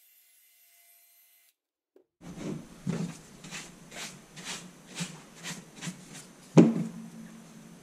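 Bristle paintbrush sweeping grinding dust off a rubber work mat in quick strokes, about two a second, starting a couple of seconds in. A single sharp knock, the loudest sound, comes near the end.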